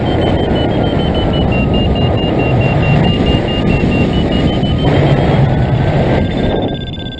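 Wind rushing over the microphone in flight under a paraglider. Over it a variometer beeps in a steady run of short tones whose pitch dips and then rises: the beeping is the instrument's signal that the glider is climbing in lift. The wind noise eases near the end.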